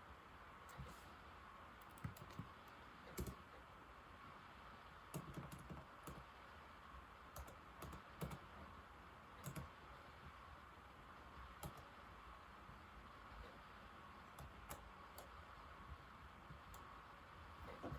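Typing on an old laptop keyboard: soft, irregular key clicks, sometimes in quick little runs, over a steady faint hiss.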